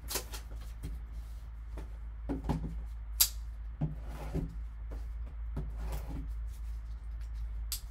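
Plastic shrink-wrap being torn and peeled off a cardboard trading-card box by gloved hands: irregular crinkling and rustling, with a sharp snap about three seconds in. A steady low hum runs underneath.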